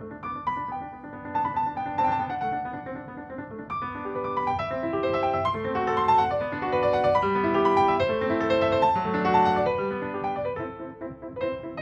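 Background piano music: a gentle melody with flowing rising and falling runs of notes.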